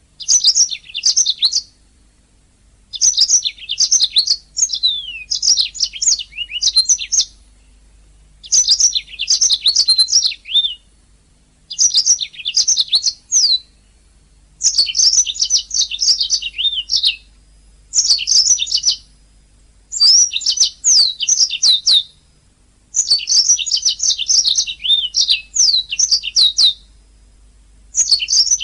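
Domestic canary singing in repeated phrases of rapid high chirps, trills and quick falling notes. Each phrase lasts one to three seconds, with short pauses of about a second between them.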